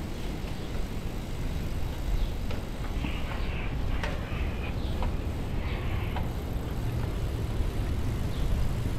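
Steady low rumble of wind on the microphone and tyres on the road while riding a bicycle in a group, with a few faint higher sounds and light ticks near the middle.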